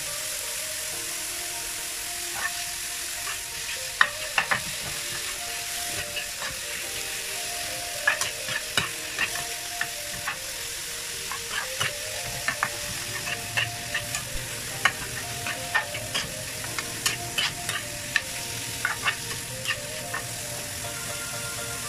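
Chicken strips and scrambled egg sizzling steadily in a nonstick frying pan. From about four seconds in, a metal spatula stirs them, scraping and clicking against the pan many times at an uneven pace.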